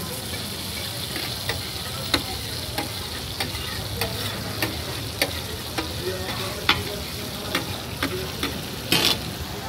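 Metal spatula striking and scraping on a large flat tawa griddle, working tomatoes that sizzle in hot oil. The sizzle runs steadily under the sharp strikes, which come roughly every half second or so, with a quick double strike near the end.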